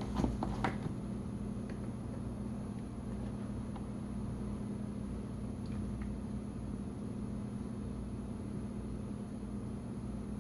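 A steady low mechanical hum, with a few light clunks in the first second and a couple of faint ticks later.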